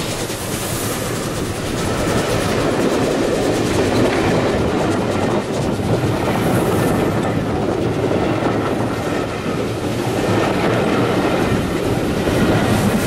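The coaches of a steam-hauled passenger train roll past close by, their wheels running on the rails in a loud, steady rumble and clatter.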